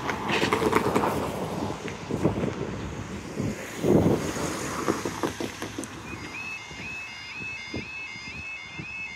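Road traffic and wind on the microphone, then about six seconds in a UK level crossing's warbling yodel alarm starts, a rising-falling tone repeating a couple of times a second. It comes on with the amber warning light and warns that a train is coming and the barriers are about to lower.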